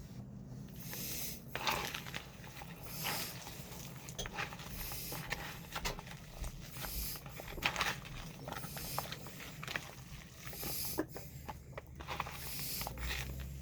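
Hands kneading and squishing raw ground meat mixture for meatballs, in irregular short bursts.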